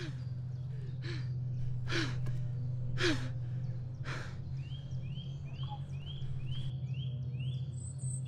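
Heavy, ragged breathing: loud gasping breaths about once a second, each ending in a short falling sigh, over a low steady drone. From about five seconds in, a short high chirp repeats about twice a second.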